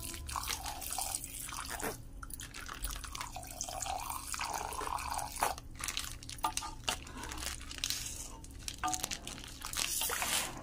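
A thin stream of liquid pouring and splashing into a full aluminium pot of kheer, with irregular clicks and knocks throughout.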